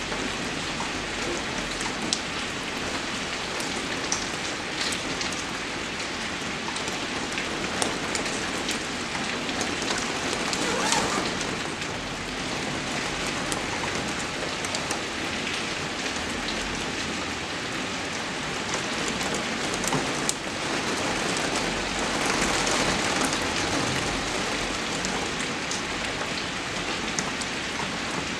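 Steady rain falling, an even hiss sprinkled with sharp drop taps, swelling a little louder about eleven seconds in and again past twenty seconds.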